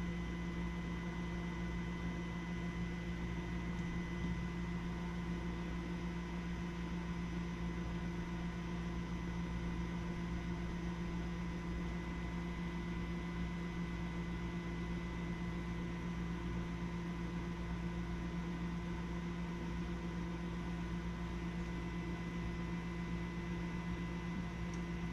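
Small electric air pump in a pressure switch tester running steadily, a constant hum with a fixed pitch, drawing air on a furnace pressure switch to find the pressure at which it closes.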